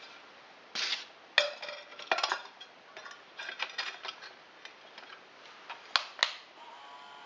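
Clicks and knocks of a round pizza stone being set down on the metal arms of a rotating turntable and shifted into place, with two sharp knocks about six seconds in. Near the end the turntable's small electric motor hums faintly again.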